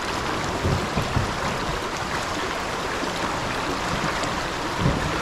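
Fast creek water rushing and churning steadily around a kayak pinned by the current against an undercut bank.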